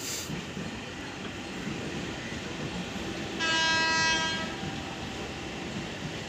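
MEMU (mainline electric multiple unit) train approaching with a steady low rumble. About three and a half seconds in, it sounds a single horn blast lasting about a second.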